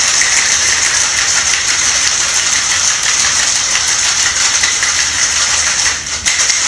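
Ice rattling fast and hard inside a cocktail shaker as a drink is shaken, with a brief lull about six seconds in.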